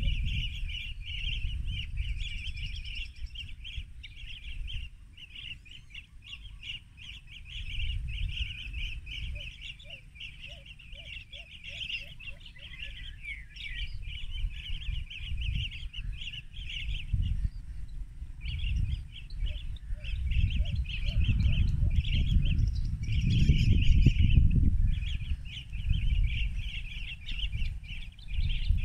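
Several rufous-crowned bee-eaters calling together: dense, rapid trilled chirps, almost without pause, briefly dropping out twice in the second half. A low rumble runs underneath and grows louder in the second half.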